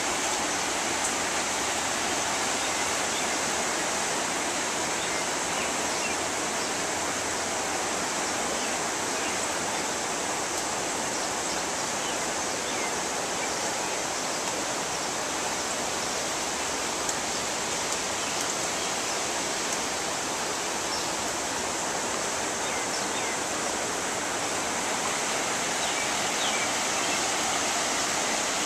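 Fast-flowing floodwater rushing and churning through a residential street: a steady, unbroken rushing noise.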